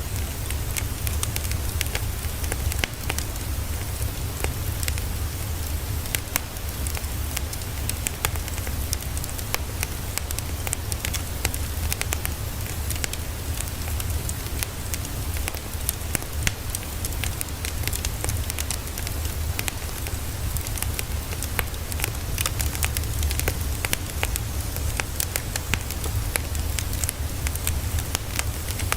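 Steady white-noise ambience: a dense crackle of many small sharp clicks over a constant low rumble, the kind of sound given by a crackling fire or heavy rain.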